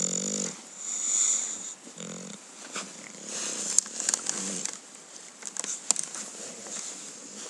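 English bulldog snoring in its sleep: a rattling snore right at the start, then noisy breaths with a few shorter snores, and a scatter of sharp clicks and rustles in the middle.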